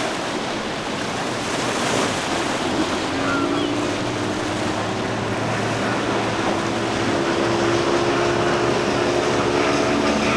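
Single Mercury 225 hp outboard on a Stamas center-console running at speed through choppy water, over the rush of the hull's spray and wake. The engine's steady drone comes through about three seconds in and grows louder toward the end as the boat closes in.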